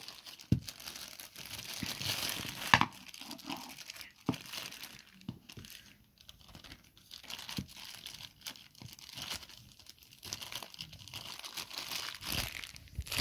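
Clear plastic packaging bag crinkling and tearing as the microphone's small stand is worked out of it by hand: irregular rustling with a few sharp clicks, quieter for a couple of seconds midway.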